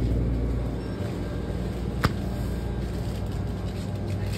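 Steady low hum of a store's refrigerated display cooler running, with one sharp click about two seconds in.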